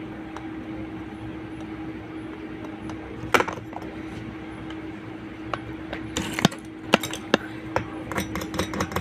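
Small metal tools clicking and tapping: one sharp click about a third of the way in, then scattered clicks that turn into a quick run of light taps, several a second, near the end. A steady low hum runs underneath.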